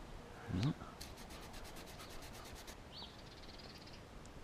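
Faint bird calls: a rapid high ticking trill of about eight notes a second, then a short chirp and a quick high twittering phrase. Just under a second in, a brief murmured voice sound.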